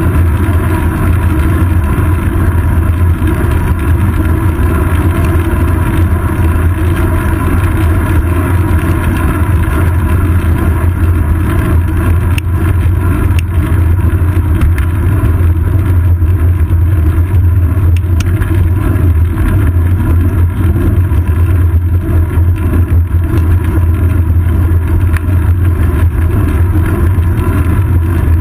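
Loud, steady low rumble of wind and road vibration picked up by a GoPro Hero 2 mounted on the seat post of a bicycle riding along a paved road.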